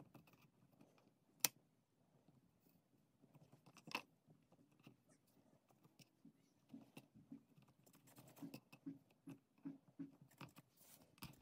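Near silence, broken by two faint sharp taps and then, from about two-thirds of the way in, a run of soft faint ticks as fingers press and squeeze polymer clay scraps into a log on a hard work surface.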